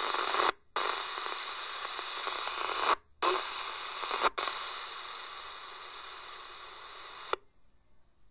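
Police radio scanner static: an open channel hissing steadily, broken by three short dropouts, then cutting off suddenly near the end.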